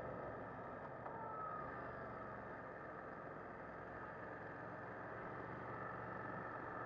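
Muffled, steady riding noise of a BMW F 900 R motorcycle slowing from about 50 km/h: wind and road rush with the bike's parallel-twin engine faint underneath.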